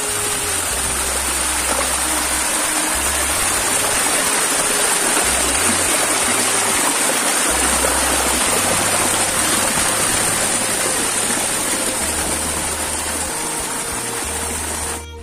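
Waterfall: loud, steady rushing of falling water, with a thin steady high whine over it and faint background music with low bass notes underneath.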